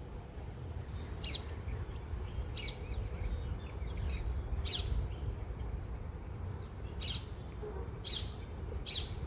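Birds at a feeding spot giving short, sharp, high-pitched calls, about six of them spaced a second or two apart, over a low steady background rumble.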